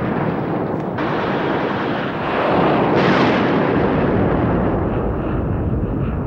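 Continuous rumbling roar of explosions and anti-aircraft fire, swelling louder about two and a half to three and a half seconds in.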